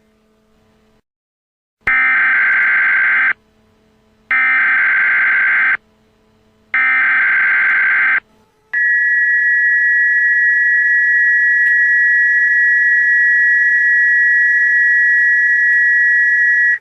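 Emergency Alert System activation: three short bursts of the SAME digital header, each a buzzy warble of data tones, followed by the long steady attention tone that precedes a severe thunderstorm warning.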